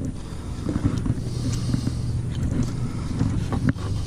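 Steady low engine-like drone, with a few soft knife scrapes and taps as a fish fillet is skinned on a plastic cutting board.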